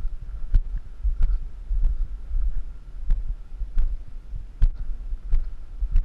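Footsteps of the camera wearer walking over dry grass and dirt: a steady thump about every two-thirds of a second, over a low rumble on the microphone.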